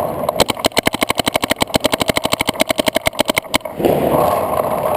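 Paintball marker firing in rapid fire, about a dozen shots a second, stopping abruptly about three and a half seconds in; a steady rushing noise follows.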